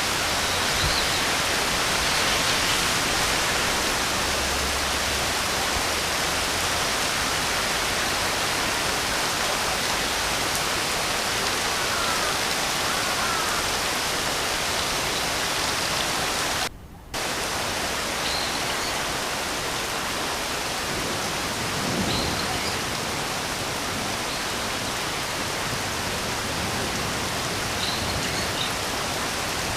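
Steady rain with a few faint bird chirps now and then. The sound drops out completely for a moment a little past halfway.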